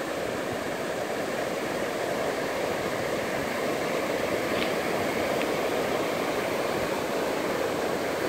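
Ocean surf breaking and washing up the shore: a steady rush of noise.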